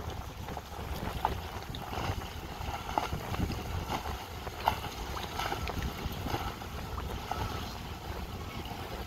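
Speedboat running fast across choppy water: a steady engine rumble mixed with wind buffeting the microphone and short irregular knocks.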